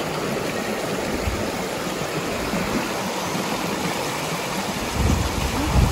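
River water rushing and splashing steadily, with a low rumble coming in near the end.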